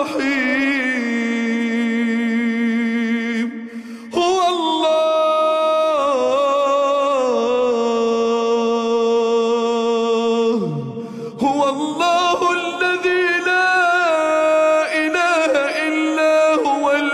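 A man's voice reciting the Qur'an in the melodic tajwid style, unaccompanied. He sings three long drawn-out phrases of held, wavering notes, with brief breaths about four seconds in and again near eleven seconds.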